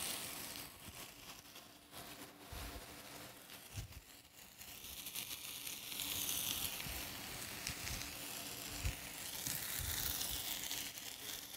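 Food sizzling in a stainless sauté pan: a faint, steady frying hiss that grows a little louder about halfway through. A few soft knocks sound now and then.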